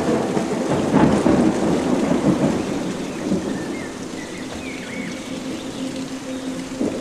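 Steady rain with a low rolling rumble of thunder, loudest in the first two or three seconds and then dying away.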